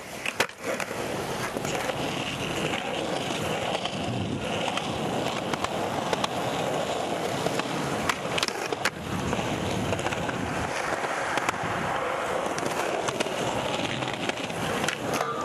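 Skateboard wheels rolling on concrete throughout, with sharp clacks as the board lands a kickflip just under half a second in, and more knocks of the board on a low concrete ledge around eight and a half seconds in.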